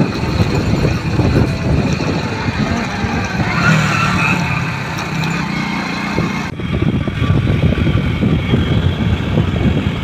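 Wind rushing and buffeting on the microphone of a moving scooter, with the scooter's engine running underneath. The sound changes abruptly about six and a half seconds in.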